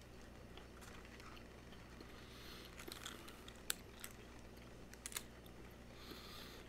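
Faint scattered clicks and short crinkles of a small cardboard candy box and its wrapping being handled in the fingers, with a sharper click about halfway through and another a little later.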